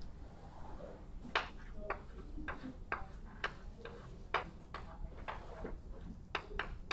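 Chalk tapping and clicking against a blackboard while drawing a diagram: about ten sharp taps at irregular intervals.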